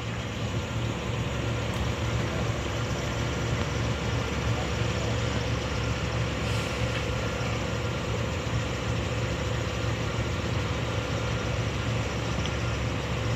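An engine idling steadily, a constant low hum that does not change.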